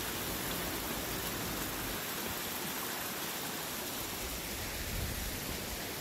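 Mountain stream running: a steady, even rush of flowing water.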